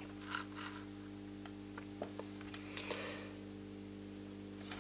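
Quiet, with a steady low electrical hum and a few faint, scattered clicks and taps from hands handling the casing of a Samsat CA 510 satellite receiver, which has just powered up after repair.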